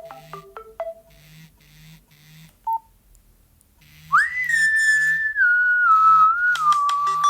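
Nokia 113 phone tones played through its small speaker. First a quick pattern of short stepped beeps that ends about a second in, then a single short key beep. From about four seconds in, a whistle-like synth tone swoops up, holds, and steps down in pitch.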